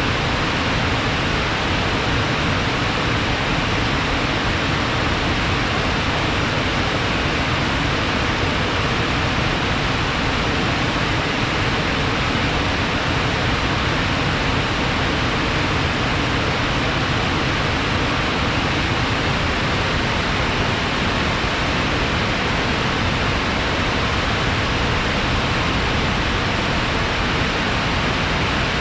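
Rushing water flowing fast and heavily after rain, a steady, unbroken rush.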